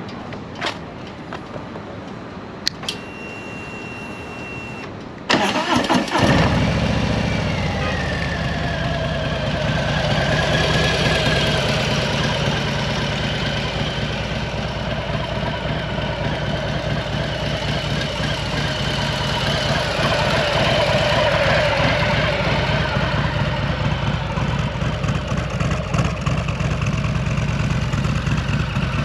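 Harley-Davidson Low Rider S Milwaukee-Eight 114 V-twin being started. A couple of clicks and a short high tone come first, then about five seconds in the starter cranks and the engine catches at once. It settles into a steady idle.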